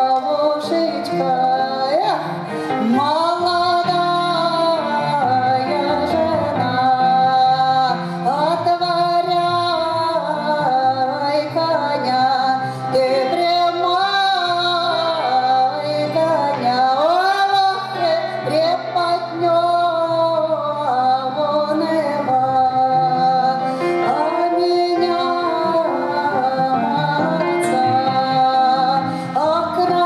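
A woman sings a Russian folk song, amplified through a handheld microphone, accompanied by grand piano. The voice swoops up into held notes with vibrato, phrase after phrase.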